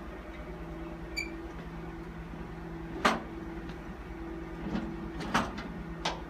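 Collimator cart being pushed into its docking rails on a gamma camera. A sharp clunk comes about three seconds in, then several lighter knocks and clacks near the end as it locks in, over a steady machine hum. A short high beep sounds about a second in.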